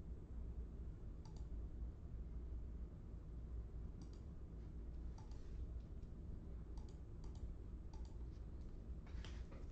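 Irregular light clicks, several seconds apart at first and closer together near the end, over a faint steady low hum.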